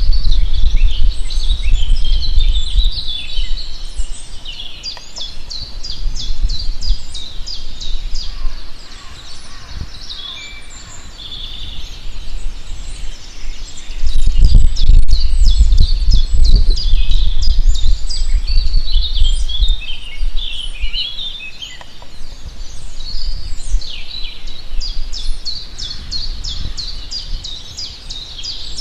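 Several songbirds singing and calling at once, with chirps and quick trills, over a low rumble that swells near the start and again around the middle.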